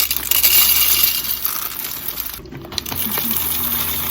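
Whole coffee beans poured into the bean hopper of a Gaggia Anima Prestige espresso machine, a dense rushing rattle of beans that breaks off briefly about two and a half seconds in, then carries on more quietly.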